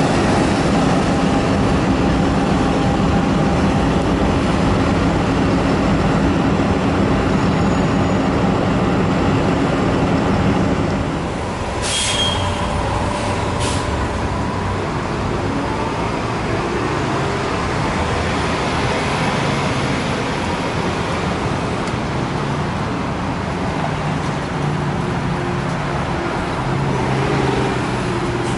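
Engine of a Gillig trolley-replica bus running steadily close by. After a sudden drop in level it gives way to street traffic with buses and cars passing, and two short air-brake hisses come about twelve seconds in.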